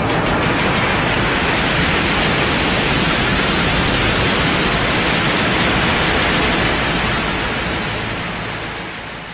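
Cartoon sound effect: a loud, steady rushing noise that fades away over the last two seconds.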